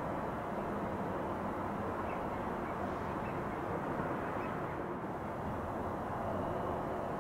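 Steady outdoor background rumble and hiss, even throughout, with a few faint high chirps between about two and four seconds in.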